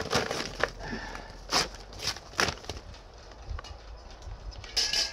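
Irregular knocks and clatters from the parts of a Weber 14-inch Smokey Joe kettle grill being handled and set in place, with a louder clatter near the end.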